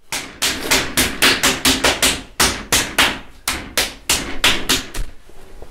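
Rapid, even strikes of a hand tool beating a mound of clay on a potter's wheel, about five a second, stopping about five seconds in.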